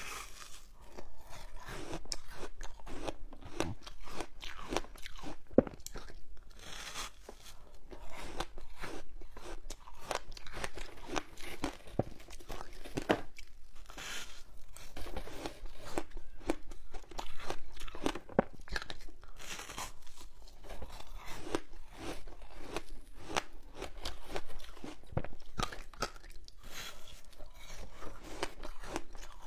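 Biting into and chewing frozen ice foam coated in passion fruit pulp: dense, irregular crunching of the ice between the teeth.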